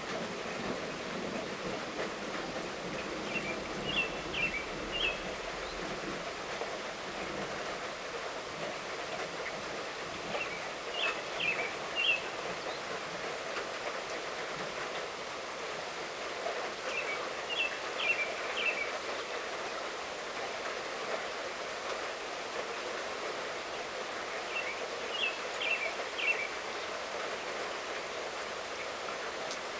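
Steady light rainfall, with a bird singing a short phrase of quick high chirps four times, about every seven seconds.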